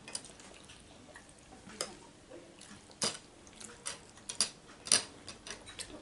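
Eating sounds: about half a dozen sharp, scattered clicks and taps, the loudest about five seconds in.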